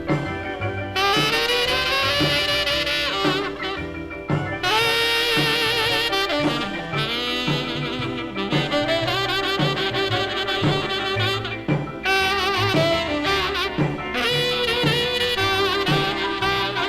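Instrumental break of a vocal-group song played from a 45 rpm single: a horn solo with wavering, vibrato-laden notes over the band and a steady drum beat.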